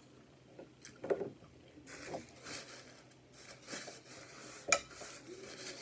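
Quiet tableside handling sounds: a few light clicks and knocks at the plate, and a paper napkin rustling as hands are wiped. A sharp click comes about three-quarters of the way through.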